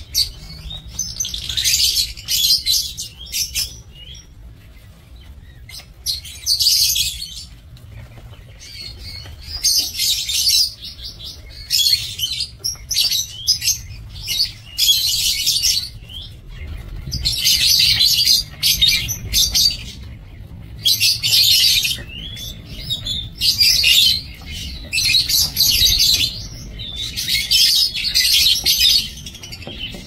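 A flock of lovebirds chattering in high-pitched bouts of a second or so, one after another with short gaps, over a faint low rumble.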